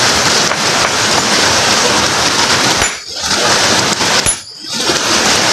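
Steel hammer striking a boulder again and again, metallic clinks of metal on stone over rushing stream water, with brief pauses about three seconds in and near the end.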